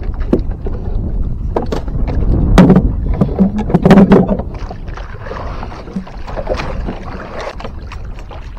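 Knocks and thumps of handling on a small wooden boat's plank deck, loudest about three to four seconds in. After that come the softer wash of wind and water around the hull, with a few light knocks.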